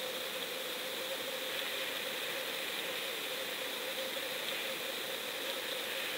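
Steady underwater hiss picked up by a GoPro in its waterproof housing resting on a lake bottom, with a faint steady hum underneath.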